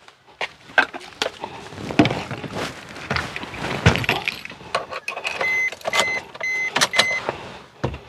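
Handling and rustling sounds of someone settling into a car's driver's seat, with clicks and keys jangling at the ignition. About five seconds in, the car's warning chime beeps four times, about two beeps a second.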